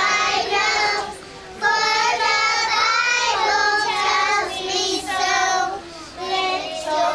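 A group of young children singing together, with short breaks between sung lines about a second in and again near the end.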